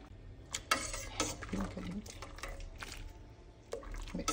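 Kitchen utensil clinking and knocking against a pot and a pan, a string of irregular clinks, as cooked penne is scooped out and dropped into a pan of cream sauce.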